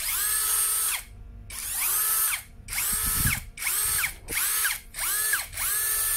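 Toyoko cordless brushless drill-driver run unloaded in short trigger pulls: about seven bursts of motor whine, each rising in pitch as the motor spins up, holding steady, then cutting off. It runs smoothly.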